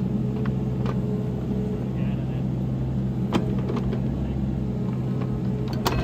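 Cat 302.7 mini excavator's diesel engine running steadily under working load. A faint hydraulic whine sounds for about a second and a half near the start, and a few sharp knocks come from the bucket and arm, the loudest just before the end.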